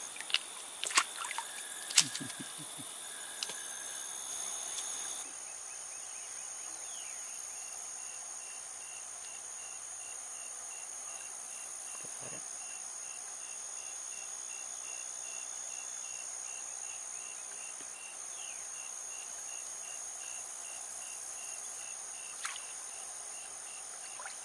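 Outdoor ambience at a creek pool: a steady high insect drone with a regular pulsing chirp, a couple of pulses a second. In the first few seconds a few sharp clicks and light splashes come from the water snake struggling with the fish on the line.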